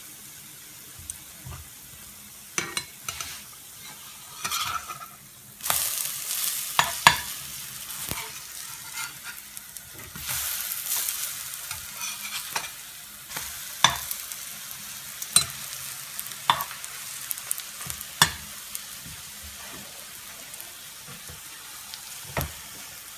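Oladyi sizzling in shallow oil in a ceramic-coated frying pan while a metal slotted spatula turns them over one after another. The sizzle swells twice, about a quarter and about half way in, and sharp taps of the spatula on the pan come every second or two.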